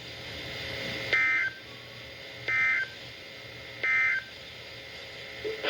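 Emergency Alert System end-of-message data signal: three short, evenly spaced bursts of warbling two-tone digital data, over a faint steady radio hiss.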